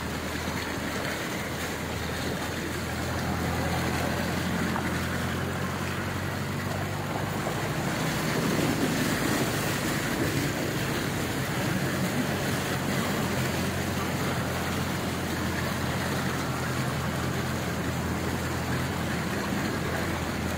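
A vehicle driving through floodwater: its engine hums steadily underneath a constant rushing splash of water thrown up by the wheels along its side. The splashing grows a little louder a few seconds in and again about eight seconds in.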